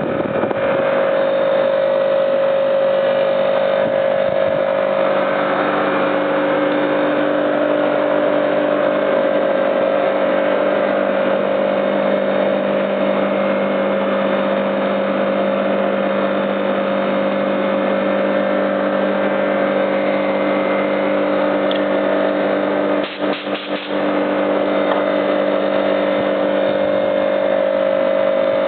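Air-conditioner compressors driven by three-phase motors running steadily, a constant machine hum with a strong mid-pitched tone; a second, lower tone joins about five seconds in, and the sound briefly dips near the end.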